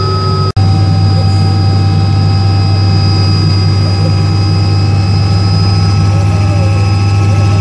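Helicopter engine and rotor heard from inside the cabin: a loud, steady drone with a strong low hum and a high whine over it. The sound drops out for an instant about half a second in, then carries on unchanged.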